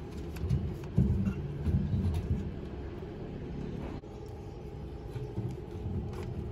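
A low, uneven rumble, loudest in the first couple of seconds, with a few faint clicks as a long hand screwdriver drives a screw through plywood into an iron frame.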